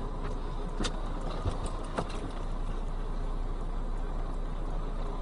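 A vehicle engine idling steadily with a constant low hum, and a couple of faint clicks about one and two seconds in.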